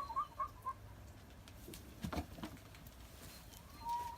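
Chickens clucking: a quick run of short clucks in the first second, then a single short rising call near the end. A sharp knock sounds about two seconds in.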